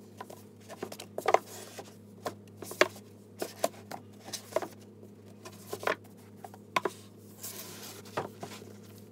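Books being pushed along and stood upright on a bookshelf: irregular light knocks and taps as they bump the shelf and each other, with a brief sliding scrape about seven and a half seconds in.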